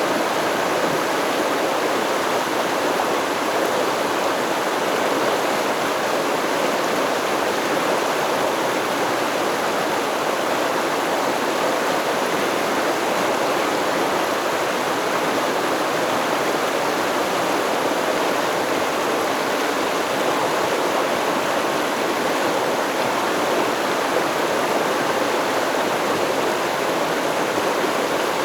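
Stream water flowing, a steady, unbroken rush with no change in level.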